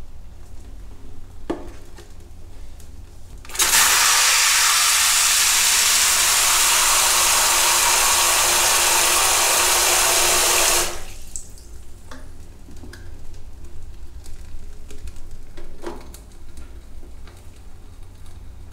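Water spraying from a handheld shower head into a foil-lined cardboard ramen pot: a loud, steady hiss that starts abruptly a few seconds in, runs about seven seconds and cuts off suddenly. A few light knocks and taps come before and after it.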